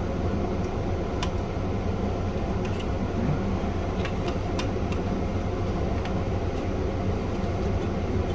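Steady low mechanical hum, with a few faint small clicks of parts being handled during reassembly.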